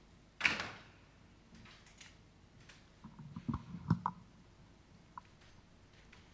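Handling noise from a stage microphone: a short sharp rush of noise about half a second in, then a cluster of knocks and clicks between three and four seconds in as the handheld microphone is taken up.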